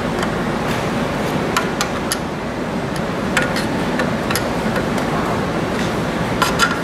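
Scattered small clicks and taps of hand work: a screwdriver turning the side-panel screws and the metal parts being handled, over a steady background hiss.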